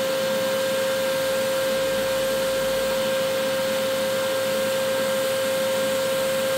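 TIG welding arc from a Kemppi MinarcTig burning steadily on steel plate while a bead is run: an even hiss with a constant mid-pitched hum.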